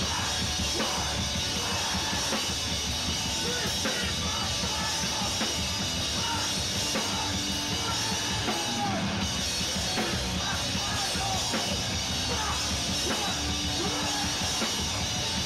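Hardcore punk band playing live at full volume: drum kit heard up close with shouted vocals over the band.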